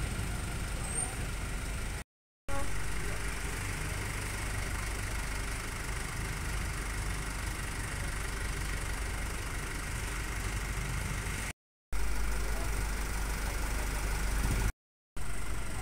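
Motorcycle and car engines idling and running in a queue for fuel, a steady mixed traffic noise. It is broken by three brief silent gaps.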